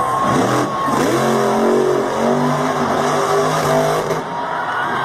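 Monster truck engine revving hard. The pitch dips and climbs in the first second, then holds at high revs, and breaks off a little after four seconds in.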